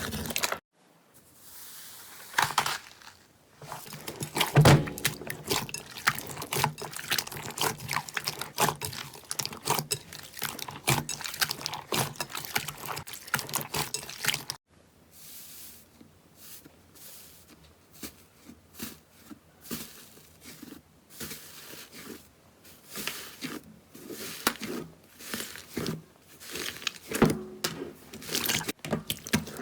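Slime being squeezed and worked by hand: a stream of short wet clicks and squelches. About halfway through it turns abruptly quieter, with sparser clicks.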